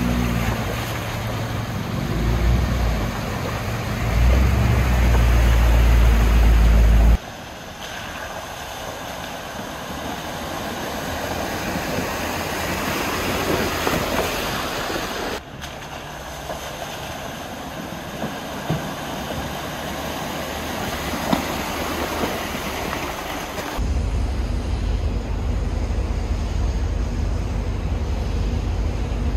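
Off-road trucks driving through a shallow creek and along a muddy trail: engines running as a low rumble, with the rush and splash of tyres in water. The rumble builds and is loudest over the first several seconds, drops away suddenly, and comes back near the end.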